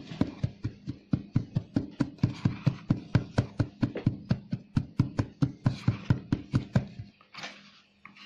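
A rubber dental mould being tapped rapidly and steadily against the bench, about four or five knocks a second, while dental stone is poured into it: the vibration works the mix into the mould and drives out air bubbles. The knocking stops abruptly near the end.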